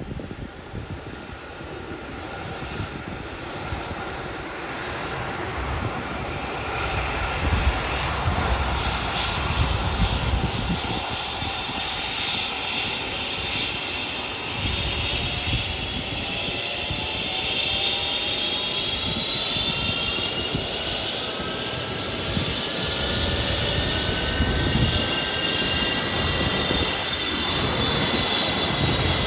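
Airbus H135 rescue helicopter running up on the ground before take-off: a high turbine whine climbs steadily in pitch as the engines and rotor build speed. Further rising whines join about halfway, and the sound slowly grows louder.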